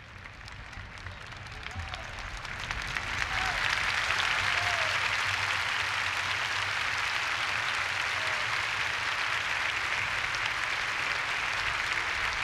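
Congregation applauding, swelling over the first three seconds or so and then holding steady, with a few faint voices calling out.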